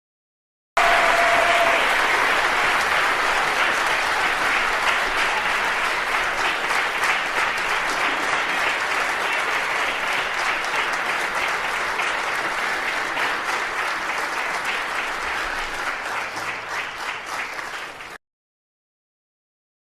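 Large crowd applauding, a dense sustained patter of many hands clapping. It starts suddenly about a second in, eases slightly over time, and cuts off abruptly near the end.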